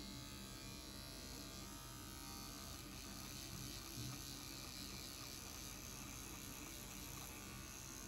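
Philips Series 1000 electric shaver buzzing steadily and faintly while shaving chin stubble.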